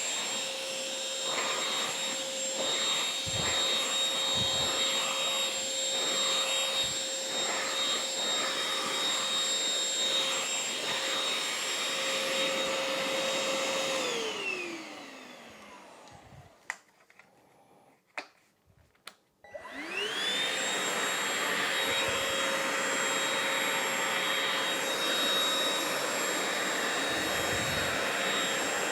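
Oraimo UltraCleaner H3 cordless handheld vacuum running with a steady high whine. About fourteen seconds in it is switched off and winds down to near silence broken by a few clicks. About five seconds later it is switched back on, spinning up to the same steady whine.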